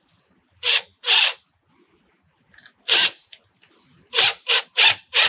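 Cordless power driver run in short trigger bursts while driving screws along the truck-bed edge strip: two bursts about a second in, one near the middle, then four in quick succession near the end.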